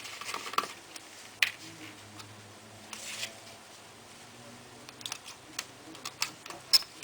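Scattered small clicks and taps of laptop parts and a screwdriver being handled while the cooling heatsink is taken off a laptop motherboard, with a brief rustle about three seconds in.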